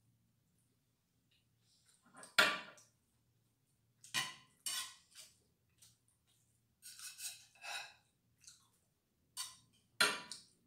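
A metal spoon clinking and scraping against a pan and a plate as fried rice is scooped out, in a series of short, sharp sounds, the loudest about two and a half seconds in.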